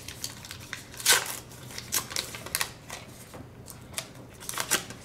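Foil wrapper of a baseball card pack being torn and peeled open by hand: irregular crinkling and crackling, loudest about a second in.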